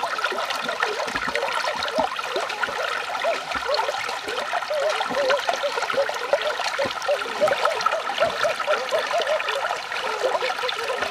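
Shallow stream bubbling and trickling over rocks close by, a steady gurgle, with some splashing from people wading through the water.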